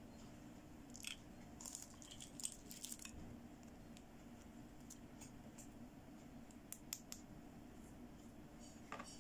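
Small plastic toy pieces, a wheel of toy press-on nails, being picked up and handled by hand, heard as a cluster of light clicks and rustles in the first few seconds. A few isolated ticks follow, over a faint steady hum.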